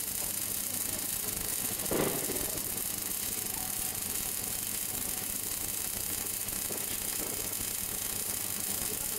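Automatic pipe welding machine's MIG torch welding a pipe seam: a steady arc hiss and sizzle over a low hum, with one brief louder sound about two seconds in.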